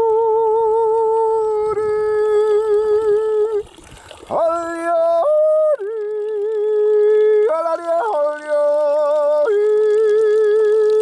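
A man yodeling through cupped hands: long held notes with a slight vibrato, the voice flipping back and forth between a low and a high note, with a short breath break about four seconds in.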